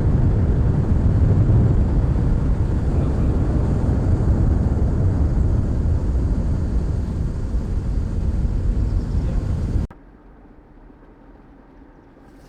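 Steady rumble of a moving vehicle's road and engine noise, heaviest in the low end. It cuts off abruptly near the end, leaving only a faint low background.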